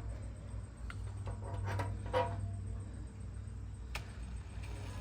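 A few light clicks and taps of tools being handled against the smoker, over a steady low hum; no drill is running yet.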